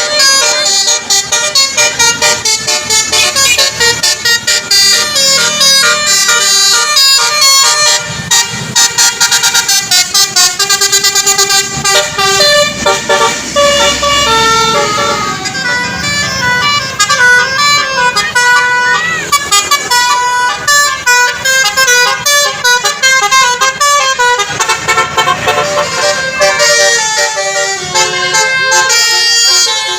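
Basuri telolet bus horn, a musical horn playing loud, fast runs of short notes in shifting melodic phrases.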